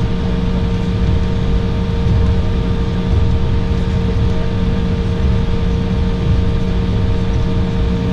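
Cabin noise of an Embraer 195 taxiing, its GE CF34 turbofans running at low power: a steady low rumble with a constant hum of several tones.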